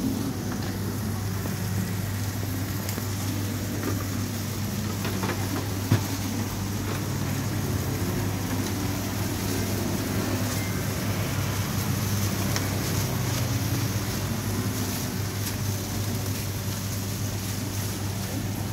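A steady low machine hum, with one sharp knock about six seconds in.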